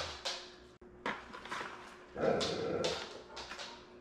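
A wire skimmer scooping cooked dog food of ground meat, rice and vegetables out of a plastic bucket and dropping it into plastic containers: a string of short scrapes and soft plops, the longest and loudest about two seconds in.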